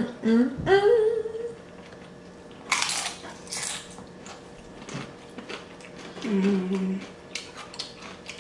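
Two people eating soft street tacos: chewing and mouth clicks, with short hummed 'mm' sounds near the start and again about six seconds in, and a brief noisy burst around three seconds.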